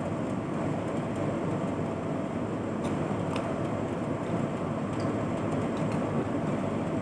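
Steady noise of a room air conditioner running, with two faint clicks about three seconds in as a plastic bottle cap is unscrewed.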